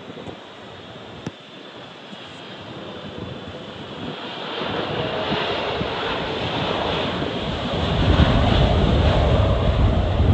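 Jet airliner engines growing louder from about four seconds in as the aircraft passes close by, with a deep rumble building in the last two seconds. Gusty wind buffets the microphone.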